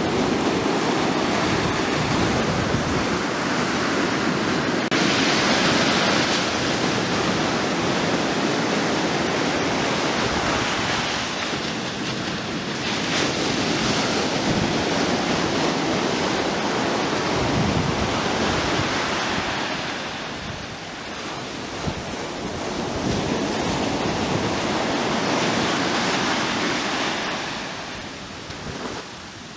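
Surf breaking and washing up a sandy shore, swelling and easing several times as waves come in, with wind rumbling on the microphone.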